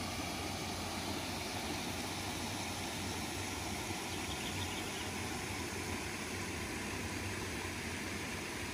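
Steady rush of creek water flowing over a small weir.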